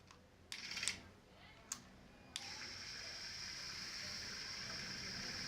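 Hydraulics of a homemade robotic arm at work: a few short scrapes and a click, then, about two and a half seconds in, a faint steady hiss starts and keeps going as the hydraulics push the arm.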